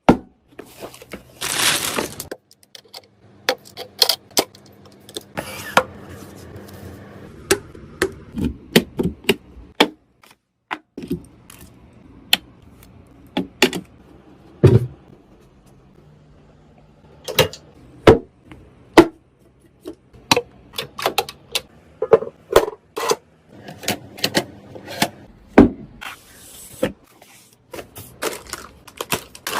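Computer parts being handled and fitted during a PC build: irregular clicks and knocks of hard plastic and metal, a brief noisy rustle about two seconds in, and a faint low hum in places.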